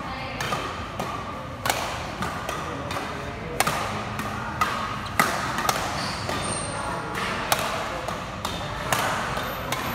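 Badminton rackets striking a shuttlecock in a fast doubles rally: about ten sharp smacks, roughly one a second, at uneven gaps.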